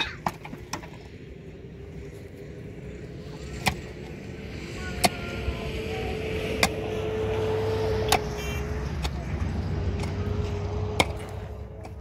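An engine running steadily, swelling a little louder toward the middle and easing off again, with sharp clicks every second or two.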